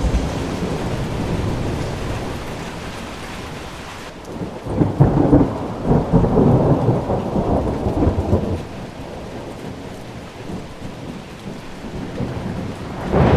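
Thunderstorm: rain falling steadily, with a long roll of thunder that builds about four seconds in, rumbles for about four seconds, then dies away.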